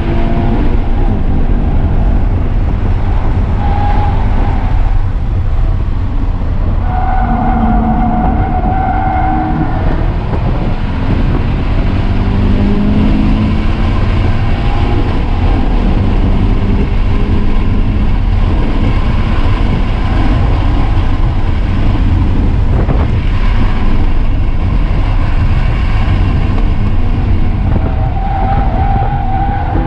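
2017 Subaru BRZ's stock 2.0-litre flat-four at full throttle, heard inside the cabin, held near 6,700 rpm in third gear, with the revs falling under braking near the end. Tyres squeal in a few short spells through the corners.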